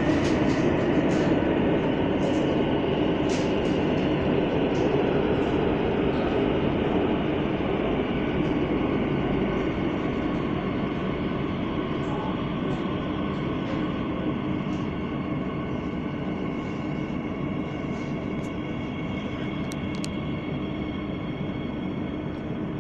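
Madrid Metro Line 12 train running through the tunnel, heard from inside the car: a steady rumble and hum with scattered light clicks. It gradually gets quieter as the train pulls into the station.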